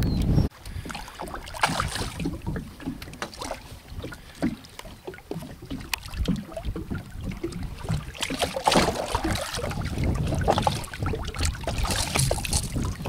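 A hooked golden dorado splashing at the side of a boat as it is landed by hand, in scattered bursts of thrashing water. The loudest splashing comes about eight and a half seconds in and again near the end, as the fish is lifted out. A low wind rumble on the microphone cuts off about half a second in.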